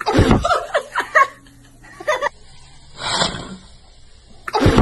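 Hard puffs of breath as a man blows into a toddler's mouth while pinching one nostril shut, three times, with short bursts of laughter in between.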